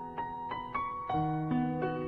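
Background piano music: a slow, gentle melody of single struck notes that ring on, a new note every few tenths of a second.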